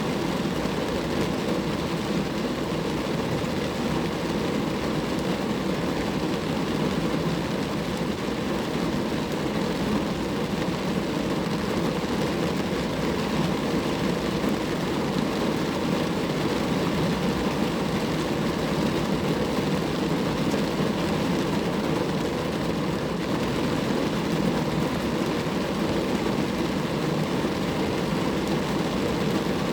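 Steady rain falling on a car, a dense, even patter of drops on the car's body.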